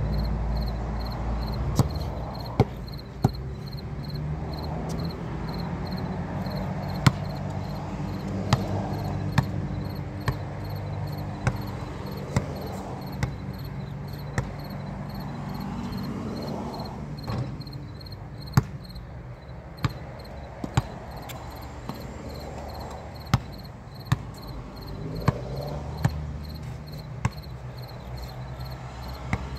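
Basketball bouncing on a concrete court: sharp smacks about once a second, irregularly spaced, as a lone player dribbles and plays. Crickets chirp steadily underneath in a fast, even pulse.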